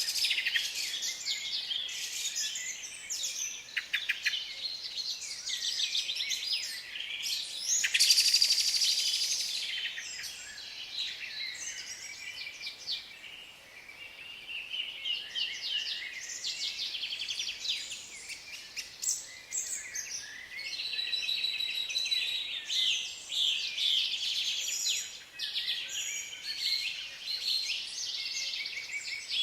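Several songbirds singing and calling at once, a dense chorus of overlapping chirps, trills and whistled phrases, loudest about eight seconds in.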